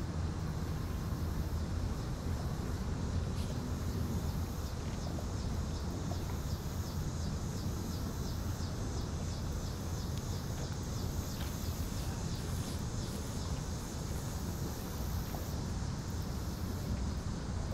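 A steady low engine hum, with faint, evenly repeating high chirping of insects over it through the middle stretch.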